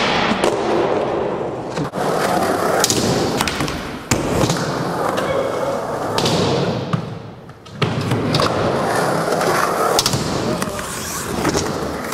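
Skateboard wheels rolling on smooth concrete, with the board grinding a metal flat bar near the start and several sharp clacks of the board popping and landing.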